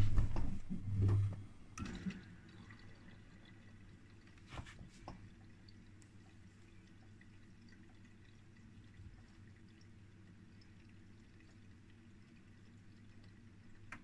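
Miele front-loading washing machine with faint water dripping and trickling inside it over a low steady hum, after a few dull thumps in the first two seconds.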